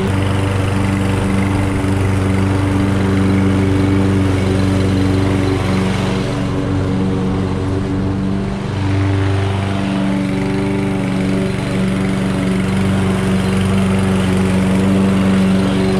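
Toro 22-inch Recycler walk-behind lawn mower running steadily with a loud, even hum. There is a brief dip about eight and a half seconds in, and the deepest part of the hum drops away around ten seconds.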